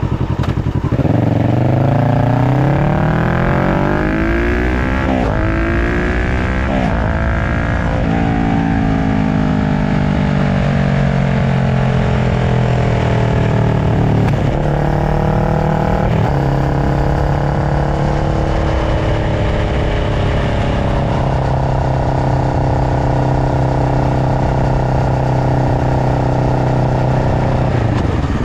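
Kawasaki Ninja 650 parallel-twin engine through an aftermarket slip-on muffler and link pipe, pulling hard through several quick upshifts. The pitch climbs and drops at each shift, then falls slowly as it slows down, and runs at a steady speed for the second half.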